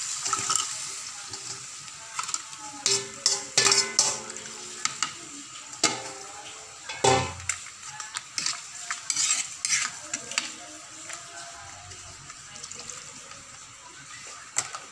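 Marinated chicken pieces tipped from a metal bowl into an aluminium pan and stirred with a metal ladle: irregular scraping and clanking of metal on metal, with a dull knock about seven seconds in.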